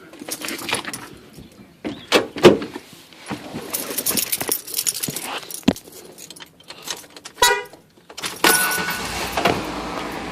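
Keys jangling and clattering, with scattered knocks and rattles as someone moves about inside a van's cabin. About eight seconds in, a steadier rushing noise begins.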